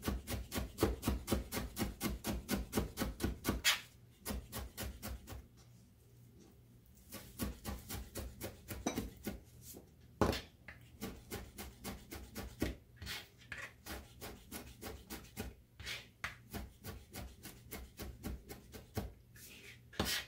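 Chef's knife chopping parsley leaves on a cutting board in rapid, even strokes, about five a second. The chopping stops for about three seconds around four seconds in, then resumes more softly with a few louder knocks of the blade on the board.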